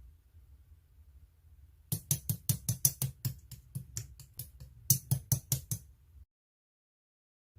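A fast run of sharp knocks or taps, about five a second, with a short break before a second shorter run; the audio then cuts to dead silence.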